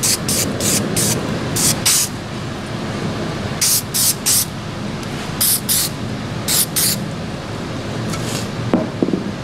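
Aerosol spray paint can giving about fourteen short hissing bursts, mostly in quick pairs and threes, splatter-painting a plastic door trim panel. A short knock near the end.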